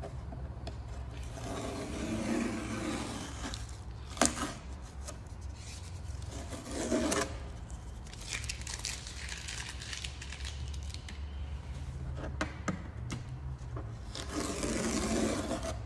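Masking tape being peeled off the edges of watercolour paper and the wooden board under it, in several separate pulls a few seconds apart, with one short sharp click about four seconds in.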